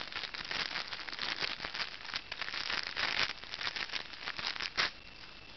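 Plastic wrapper crinkling and crackling as hands tear open a shrink-wrapped deck of trading cards. The crackling stops suddenly about five seconds in.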